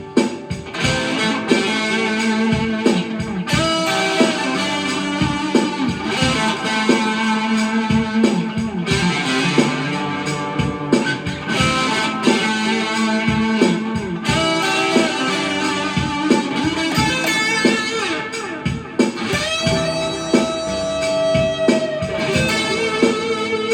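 Overdriven electric guitar played through an EVH 5150 Overdrive pedal, picking a run of lead lines and riffs with a long held note about three quarters of the way through.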